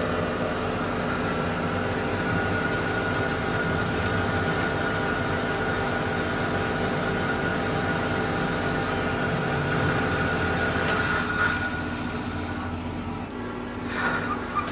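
Large engine lathe running under load while a boring bar's insert cuts the internal bore of a steel workpiece: a steady machine drone with a gear whine. A few sharp clicks near the end.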